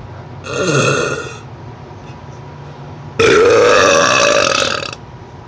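Two deliberate, forced burps: a shorter one about half a second in, then a louder, longer one that starts abruptly about three seconds in and lasts nearly two seconds.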